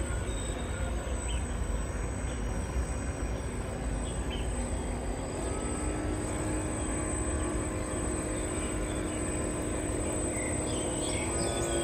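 Radio-controlled model fast ferry's electric drive motors whining as it manoeuvres, over a steady low rumble; the whine sets in about halfway and steps up in pitch near the end. Birds chirp near the end.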